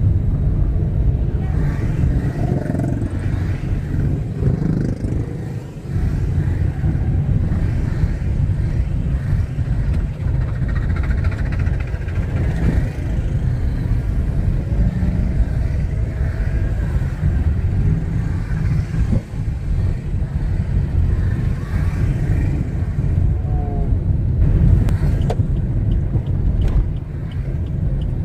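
Heavy road traffic heard from a moving vehicle: a steady low rumble of engines and tyres from the motorcycles and cars crowding the road.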